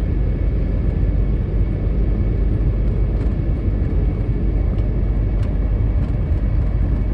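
Steady road noise of a car cruising at expressway speed, heard from inside the cabin: a constant low rumble of tyres and engine, with a few faint ticks.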